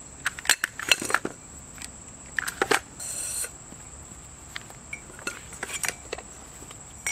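Kayak cart being taken apart and its parts handled: scattered metal and plastic clicks and clinks, denser in the first three seconds, with a brief rasp about three seconds in.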